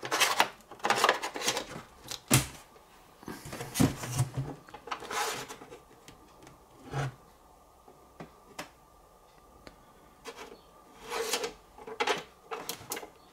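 Handling noise from a gaming monitor and its fittings: irregular rubbing and scraping with clicks, and sharp knocks about two and a half and four seconds in. It eases off to a quieter stretch in the middle, then picks up again near the end.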